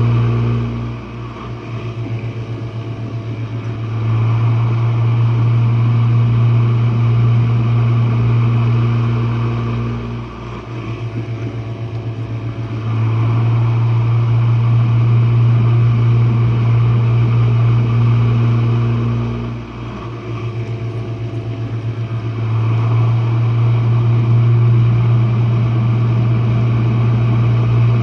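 Jenn-Air dishwasher's wash pump motor running with a loud, steady low hum. About every nine seconds the hum drops for a few seconds into a fast fluttering pulse, then swells back to full strength.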